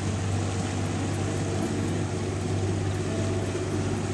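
Steady low drone of a boat engine, over a hiss of wind and water.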